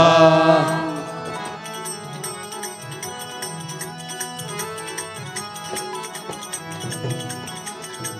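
Kirtan instrumental interlude: harmoniums playing a held melody over tabla strokes, after a sung line fades out within the first second.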